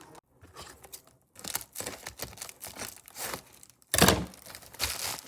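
Packaging being opened by hand: irregular crinkling and rustling with tearing, and one loud sharp rip or thump about four seconds in.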